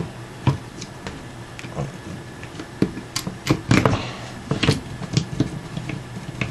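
Irregular clicks and knocks of hard plastic and metal airsoft parts being handled as the electric motor is pushed into an M4's pistol grip, busiest in the middle.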